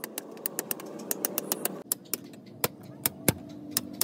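Screwdriver tip clicking and scraping against the rim and lid of a metal tin as the lid is pried open, in a quick irregular run of sharp clicks that thins out about halfway through. A steady low engine-like hum runs underneath.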